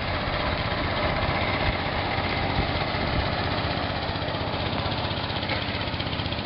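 The small raft's motor running steadily.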